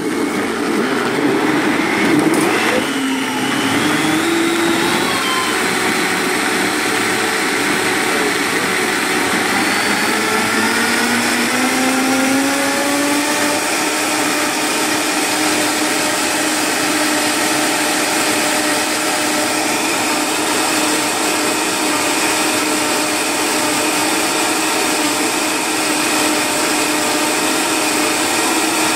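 High-powered countertop blender running on its smoothie setting, puréeing fruit and leafy greens. It comes on at once. Its motor pitch climbs steadily over the first dozen seconds as the chunks break down, then holds level as the mix turns smooth.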